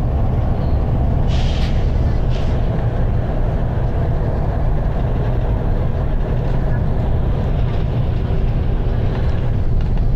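Volvo B9TL double-decker bus's six-cylinder diesel running under load, heard from the upper deck as a steady heavy rumble. Two short hisses of air sound a little over a second and about two seconds in.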